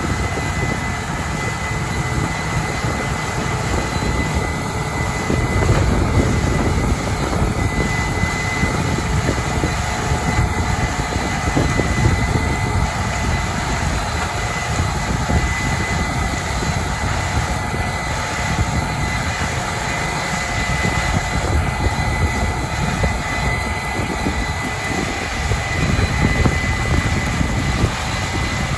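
Case IH 8250 Axial-Flow combine harvesting corn: its diesel engine and threshing machinery run under load in a steady, even drone, with a thin steady whine over it.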